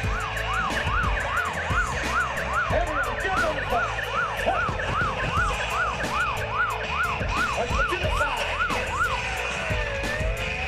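Emergency vehicle siren in a fast yelp, rising and falling about two and a half times a second, then switching to a slow rising wail near the end. Under it run a steady tone and a rapid ticking.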